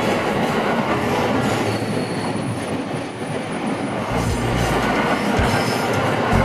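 Tokaido Line train running past a level crossing: a steady, loud rush of wheel and running noise, with a faint high thin tone partway through and a low rumble coming in about four seconds in.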